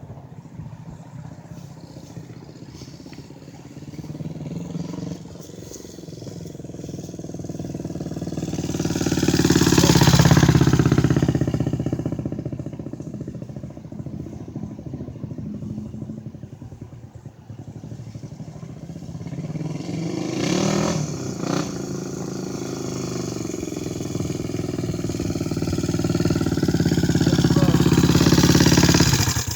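A motor vehicle's engine running, growing louder to a peak about ten seconds in and fading, then building again until it cuts off suddenly at the end.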